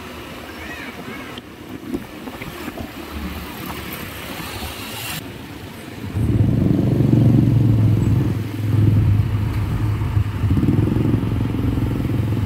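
A heavy vehicle's engine, likely a diesel truck's, starts running loud and close about halfway through, with a steady low tone. It dips briefly twice, as if between gears or throttle changes.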